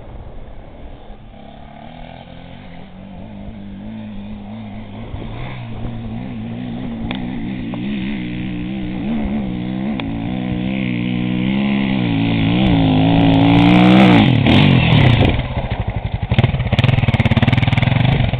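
Dirt bike engine climbing a hill under throttle, growing steadily louder as it comes closer, its pitch wavering up and down as the rider works the throttle. It is revved hardest about fourteen seconds in, then runs choppier with throttle blips near the end.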